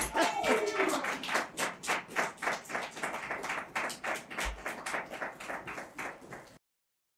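A few people clapping, separate claps about four or five a second, after a woman's laugh at the start; the sound cuts off abruptly near the end.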